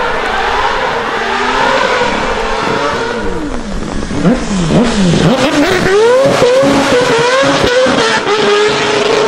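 Drift car's engine revving hard on a wet track, its pitch swooping up and down in quick throttle stabs during the slide, then held high as it pulls away, with exhaust pops. Rain hiss runs underneath.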